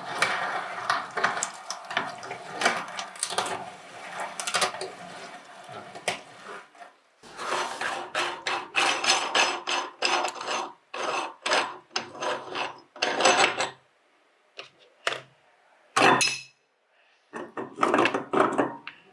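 Meat grinder grinding cherries, with steady crunching and rasping for the first several seconds, then a series of separate short crunching bursts with pauses between them.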